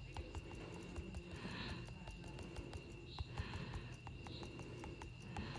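Faint clicks of betting chips being placed in an online live roulette game, many short clicks at irregular spacing, over a steady thin high-pitched tone.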